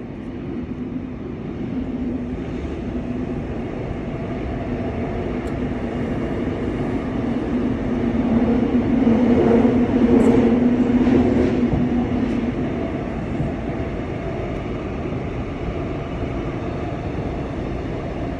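Subway train running, heard from inside the car: a steady rumble with a low hum that grows louder about halfway through, then eases off.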